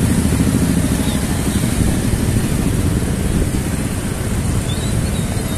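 Motorcycle and scooter traffic on a street, a steady low engine rumble.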